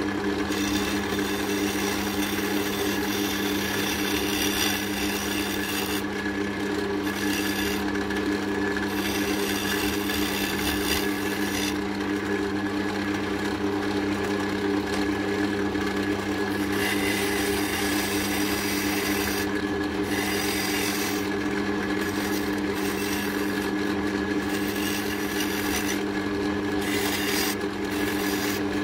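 Wood lathe motor running steadily while a turning tool cuts into a spinning oak handle, shaping it down to size. The cutting hiss comes and goes, with several short breaks as the tool is lifted off the wood.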